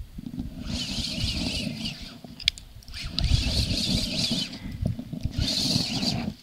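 Spinning reel cranked in three bursts of about a second each, with short pauses between, as a hooked fish is played on a heavy jigging rod. A low rumble of handling runs underneath.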